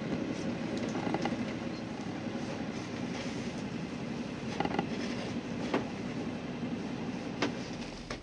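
A sailboat's engine running steadily as the boat motors out of its marina slip, with a few sharp knocks and clicks from the deck and rigging.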